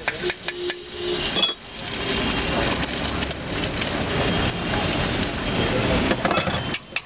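Egg frying in oil on a hot iron tawa, sizzling steadily, with a few metal clinks of the spatula against the pan in the first second or so.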